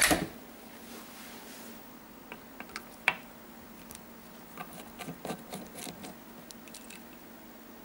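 A sharp knock as the air rifle's steel action is handled, then scattered small metallic clicks and taps as a screwdriver works a screw in the action, with a busier run of clicks about two thirds of the way through.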